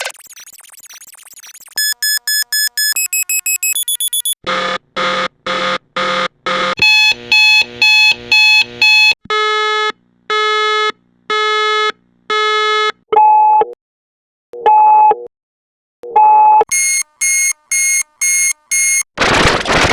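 Digital alarm clock beeping, altered into a run of sound-effect variations: evenly spaced beeps that jump to a new pitch and pace every few seconds, some high and quick, some lower and slower, with a faint wavering tone at the start and a short burst of noise near the end.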